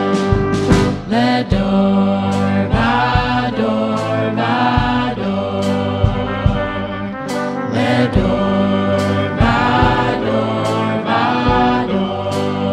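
A band plays an instrumental stretch of a song: drums keep a steady beat under electric guitar, piano and trumpet.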